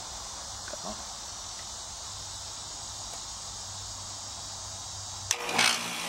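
Steady insect chirring, then near the end a sharp click as the contactor pulls in and the condenser's Copeland scroll compressor starts with a rising hum. It is a hard start with no start assist, drawing over 100 amps of inrush current.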